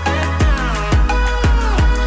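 Background electronic pop music without vocals: a steady beat with a kick drum about twice a second under sustained synth chords.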